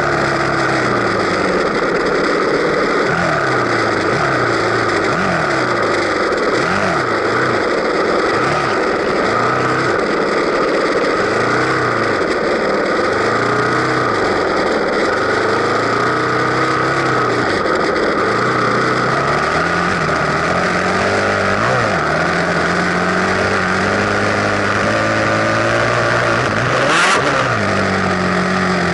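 Dirt bike engine being ridden off-road, revving up and down again and again as the rider works the throttle and gears. A single sharp knock comes near the end.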